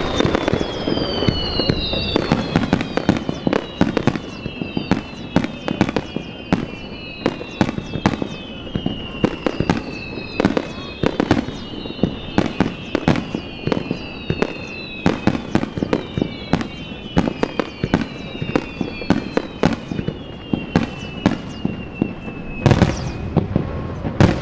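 Aerial fireworks bursting in quick succession, a dense run of sharp bangs and crackles. Many overlapping whistles fall in pitch throughout, and one bigger, longer burst comes near the end.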